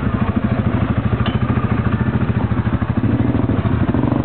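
Side-by-side utility vehicle engine idling close by, a steady, rapid pulsing beat with a light click about a second in.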